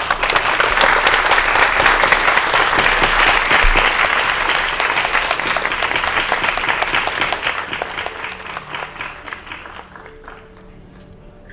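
Audience applauding: dense clapping that starts at once, then thins and fades out over the last few seconds.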